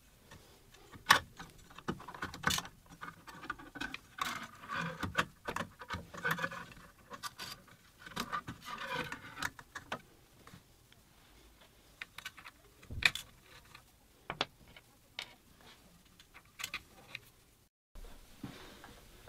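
Hands working the X-carriage and Acme nut blocks along a Workbee CNC's aluminium gantry rail and lead screw: scattered clicks, small metallic rattles and scrapes, with a couple of sharper knocks.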